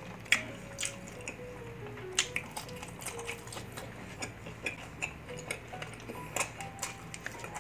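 Background music with a stepped, plucky melody, over irregular sharp clicks and smacks of someone chewing food close to the microphone; the loudest click comes about a third of a second in.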